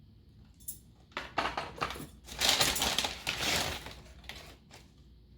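Small hardware items in plastic packaging being handled: a run of quick clicks and crinkly rustling, busiest in the middle.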